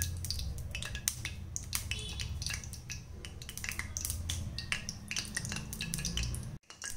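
Rice bran oil heating in a kadai over a gas burner, giving off irregular small crackles and ticks over a low steady rumble. The sound cuts out briefly near the end.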